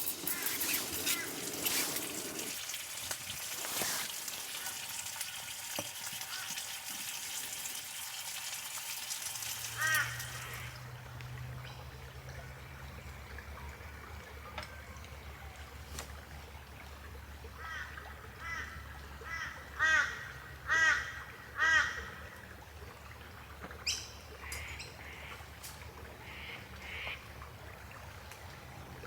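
A bird giving harsh, repeated calls: one call, then a run of four about a second apart, and a few fainter ones later, over a low steady hum. Before that, a steady hissing noise stops abruptly.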